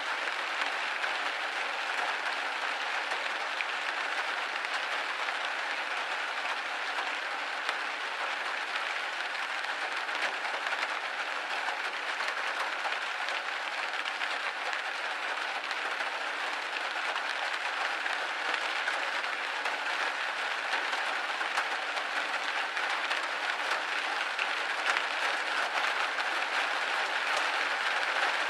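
Steady rain pattering on a window pane: a dense, even hiss of many small drop ticks, with no low rumble.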